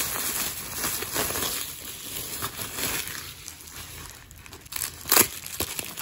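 Plastic bubble wrap crinkling and crackling as hands crumple and handle it, busiest in the first few seconds, with one sharp, loud crackle about five seconds in.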